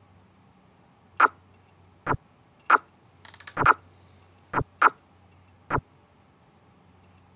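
Sharp single clicks from computer input while stepping through chess moves, about seven at uneven intervals, with a quick rattle of small ticks a little after three seconds in. A faint low hum runs underneath.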